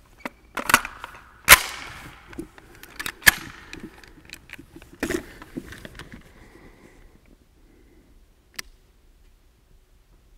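SIG MCX rifle firing a few single shots in the first few seconds, the loudest about a second and a half and three seconds in. Each crack is followed by the echo of a large indoor range.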